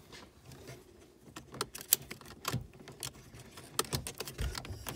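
Irregular small plastic clicks and taps from hands unplugging ribbon connectors and handling the wiring at the back of a car's instrument cluster, with one sharper click about two seconds in.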